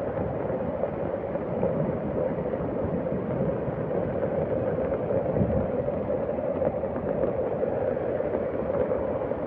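Floodwater rushing: a steady, even noise that holds without change.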